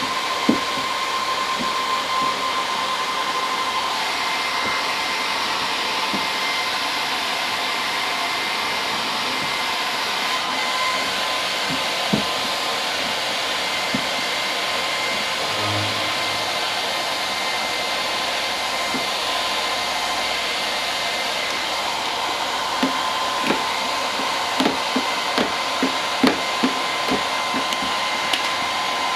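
Heat gun blowing steadily with a constant high whine, used to heat the vinyl graphic so it conforms and sets. Scattered light taps and clicks sound over it, several in quick succession near the end.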